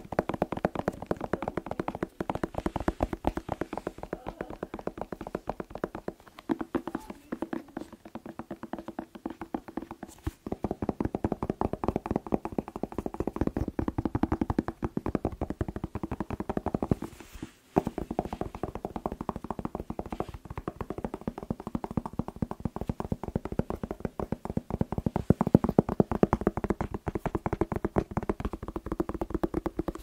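Rapid fingertip tapping on a whole red bell pepper, held close to the microphone, many taps a second with a low knocking note. The tapping stops briefly about ten seconds in and again about eighteen seconds in.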